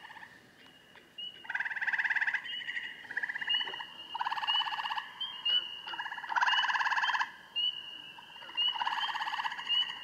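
Gray tree frog advertisement calls: loud, fast-pulsed melodious trills, each about a second long, four of them, repeated every two seconds or so. Another frog keeps up a steady run of short, high notes in the background.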